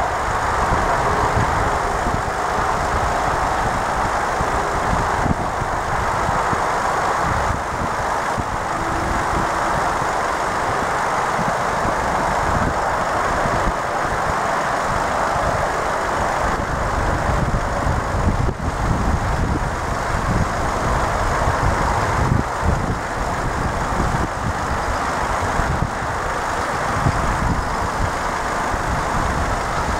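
Electric warning bell of an AŽD 71 level-crossing signal ringing continuously and steadily while the crossing is closed, with an uneven low rumble underneath.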